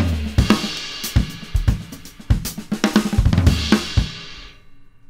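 A recorded drum-kit groove played back: kick drum, snare, hi-hat and cymbals, recorded with one overhead mic and one bass-drum mic, under light compression on the master bus. The drumming stops about four seconds in and the cymbals ring out and fade.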